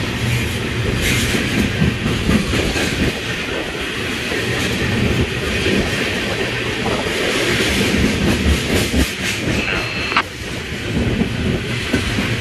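Freight train of tank cars rolling past: steel wheels clattering over the rail joints in a steady rumble, with a brief high squeal about ten seconds in.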